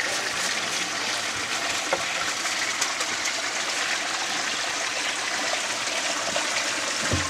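Water running and splashing steadily through a Gold Cube gold concentrator, with a few light clicks.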